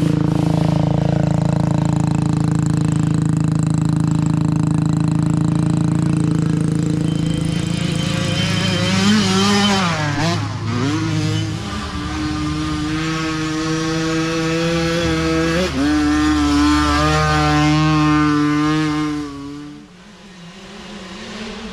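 Mini dirt bike engines running hard as the bikes ride past. The pitch holds steady, dips and wavers around nine to ten seconds, then holds higher and steady before dropping away sharply near the end.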